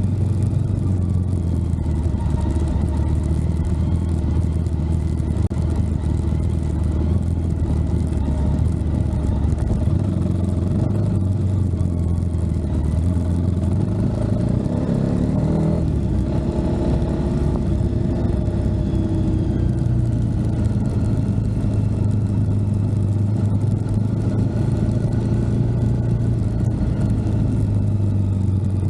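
A vehicle engine running steadily, its pitch shifting briefly about halfway through.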